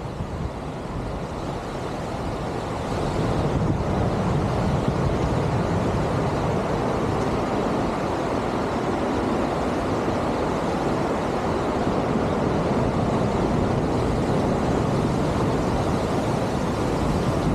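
Sea surf washing against a breakwater, mixed with wind buffeting the microphone: a steady rushing noise that grows louder about three seconds in.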